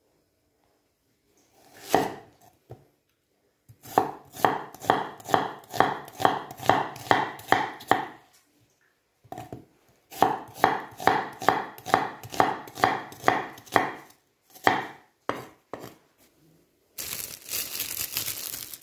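Knife slicing an onion on a wooden cutting board: two runs of quick, even cuts, about three strokes a second, each one knocking on the board. Near the end, a plastic bag crinkles.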